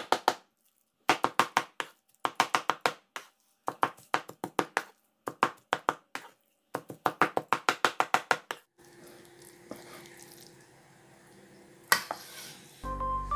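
Cleaver chopping raw chicken on a wooden cutting board: fast runs of sharp strikes, several a second, with short pauses between runs, mincing the meat. Past the middle the chopping stops, and quieter scraping follows as the mince is scooped off the board, with one sharp knock near the end.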